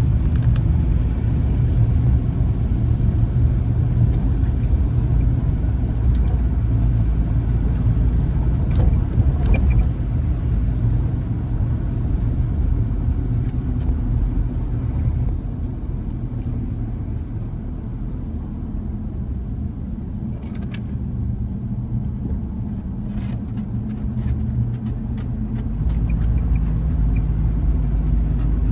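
A 2010 Honda Element driving, with a steady low engine and road rumble. The rumble eases for about ten seconds in the middle, then comes back up. Faint scattered ticks run through it.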